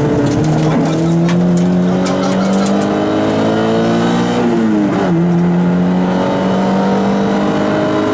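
Peugeot 106 rally car's engine heard from inside the cabin, pulling hard under load with its pitch climbing steadily. About five seconds in the pitch drops sharply at a gear change, then it climbs again.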